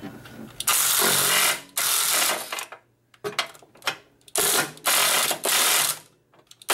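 Cordless electric ratchet with a 13/16 spark plug socket spinning a spark plug out of the Corvair's cylinder head, running in several short bursts with pauses between.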